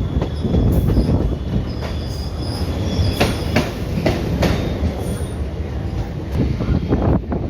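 Indian Railways ICF train coach running along the track with a steady low rumble. About three seconds in comes a quick run of wheel clicks over rail joints, and faint high-pitched wheel squeal sounds now and then.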